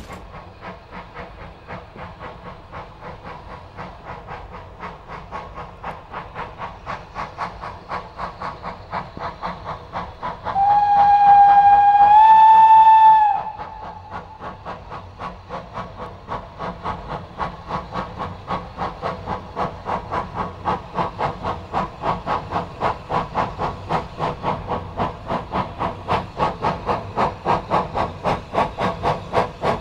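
Manning Wardle six-coupled saddle tank steam locomotive hauling a freight train, its exhaust beats in an even rhythm that grows louder as it approaches. About ten seconds in, the engine gives one steam whistle blast of nearly three seconds that steps up slightly in pitch partway through.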